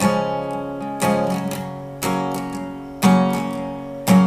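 Instrumental passage of a song: acoustic guitar strumming chords about once a second, each chord ringing out and fading before the next, with no singing.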